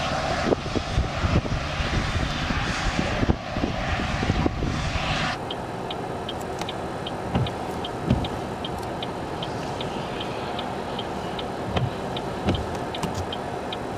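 A loud, even rushing noise with low thumps for about five seconds, then cut to a vehicle engine idling with a steady hum and a regular high tick about three times a second.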